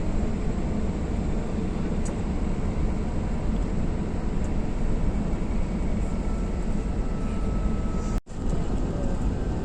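Steady road and engine noise inside a moving tour bus, with a low rumble. It cuts out for a moment about eight seconds in.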